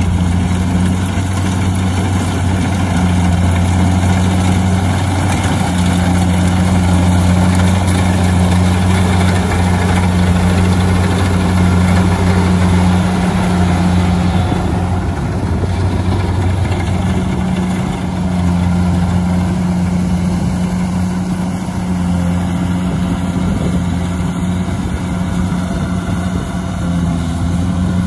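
Rice combine harvester's engine running steadily, a loud deep hum that eases a little about halfway through.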